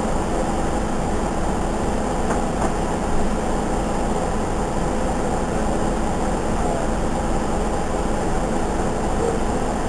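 Steady interior hum of a New Flyer C40LFR transit bus standing at idle, its Cummins C Gas Plus compressed-natural-gas inline-six engine running evenly at a constant level.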